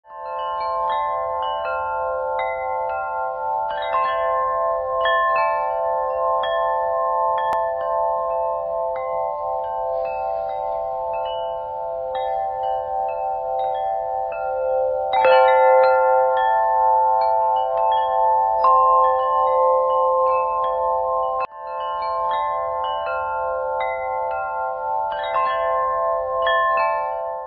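Large, deep-toned 44-inch wind chimes with thick metal tubes ringing continuously, the striker hitting the tubes at irregular moments so that several long-sustaining tones overlap. The loudest strike comes near the middle, and the ringing breaks off for a moment about three quarters of the way through.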